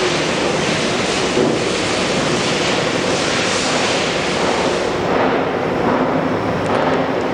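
Spindle of a YCM XV1250A vertical machining centre (15 hp, 40-taper) running at high speed, around 7,500 RPM, as a steady even hiss. The highest part of the hiss drops away about five seconds in.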